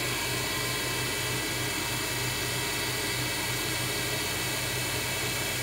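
Grizzly G0704 mill spindle, driven by a Hitachi WJ200 VFD, running steadily at about 3000 RPM: an even hum with several steady high tones above it.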